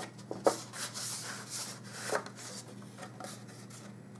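Red cardstock being pushed and wiggled into the slot of a plastic hand-held tag punch: a series of short papery scrapes with a few light plastic knocks.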